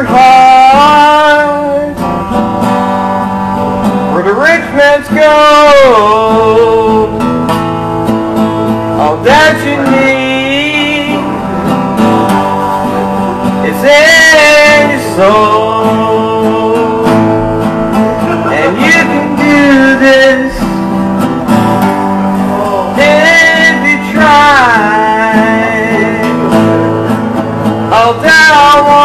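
A man singing over acoustic guitar, with long, wavering held notes between the sung phrases.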